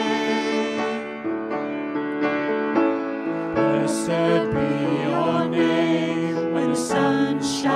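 Contemporary worship song: mixed voices singing over grand piano accompaniment.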